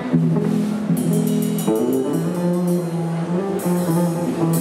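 Live rockabilly band playing an instrumental passage without vocals: electric lead guitar over acoustic guitar, double bass and drum kit. Cymbals crash about a second in and again near the end.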